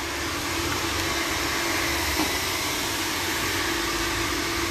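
Handheld hair dryer blowing steadily, an even rushing noise with a constant hum.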